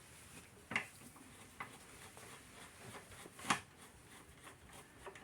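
A few light clicks and knocks of hand tools and small metal engine parts being handled while a lawn mower carburetor is taken apart; the loudest knock comes about three and a half seconds in.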